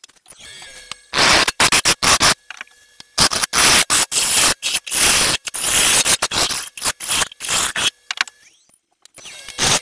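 Turning gouge cutting into a spinning olive wood blank on a wood lathe: loud bursts of cutting noise, each starting and stopping abruptly. Between the bursts the lathe runs with a faint steady whine.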